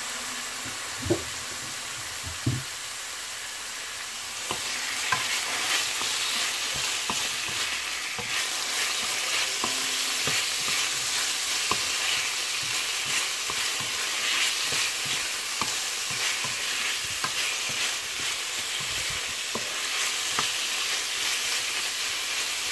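Pork belly cubes sizzling in hot oil with onion, garlic and ginger as they start to fry, stirred with a wooden spoon. The sizzle grows louder about four seconds in, with small crackles throughout and two sharp knocks in the first few seconds.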